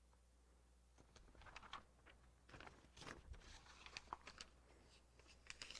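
Faint handling noises at a pulpit: light rustling and scattered small clicks from about a second in, as a Bible passage is looked up, over quiet room tone.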